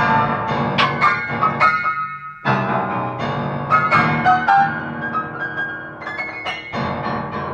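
Upright piano played, with clusters of struck notes and chords and a brief letup about two seconds in.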